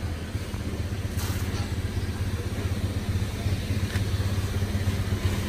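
A small engine running steadily with a low, even hum that grows slightly louder.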